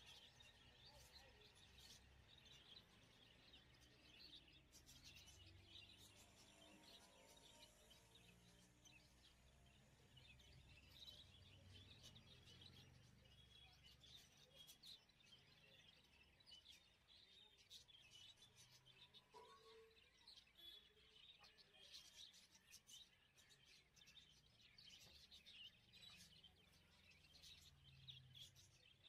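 Near silence with faint, scattered bird chirps in the background.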